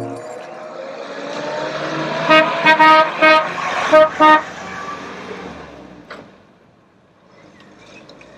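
A vehicle drives past, its road noise rising and then fading away, and sounds its horn in about six short, quick toots as it goes by.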